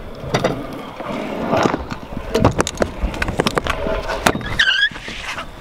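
Stunt scooter riding a skatepark ramp: the wheels rumble over the surface, with many sharp clacks and knocks from the deck and wheels hitting the ramp.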